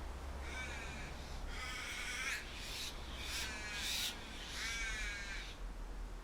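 Crow cawing, a run of about five caws each lasting under a second, over a steady low wind rumble.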